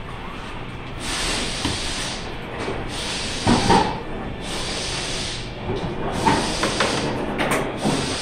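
Repeated bursts of hissing from escaping pressurised gas, each lasting about a second, in a mechanic's shop. A louder knock or clank comes about three and a half seconds in.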